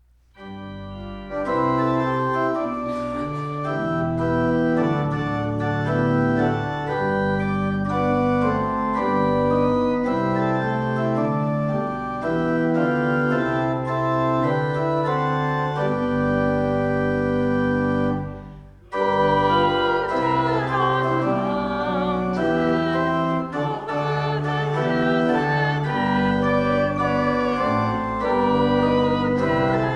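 Organ playing a slow piece in held chords. It breaks off for a moment about two-thirds of the way through, then carries on.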